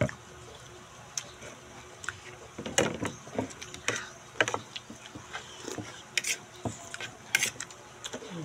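Spoon and fork clinking and scraping against a plate, heard as short separate clicks every second or so, along with chewing and slurping from eating rice and mung bean soup.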